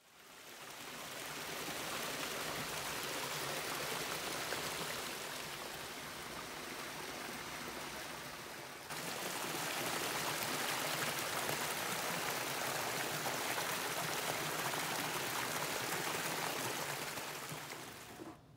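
Steady rush of running water, fading in at the start, with an abrupt cut to a slightly louder stretch about nine seconds in.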